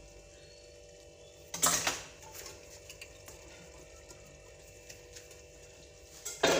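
Wooden spoon scraping and knocking against a metal cooking pot of green beans in tomato sauce, twice: about a second and a half in and again at the end. A faint steady hum and a few light ticks lie between the two.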